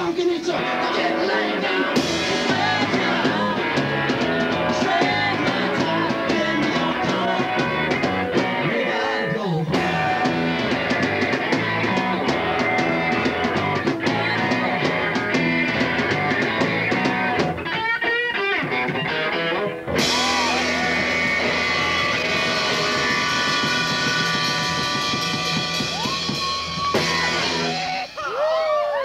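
Live punk rock band playing loud: electric guitar, drums and singing. About two-thirds of the way through, the beat gives way to long held chords.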